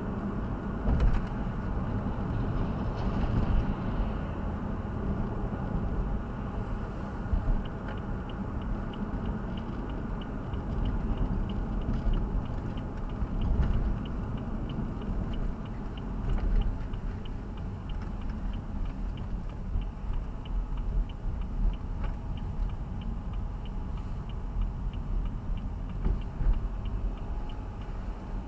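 Road and engine noise inside a moving car, a steady low rumble. From about a quarter of the way in there is a light regular ticking, roughly twice a second.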